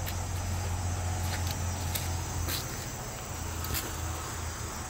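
Steady chorus of forest insects over a low, steady rumble, with a few sharp clicks scattered through it.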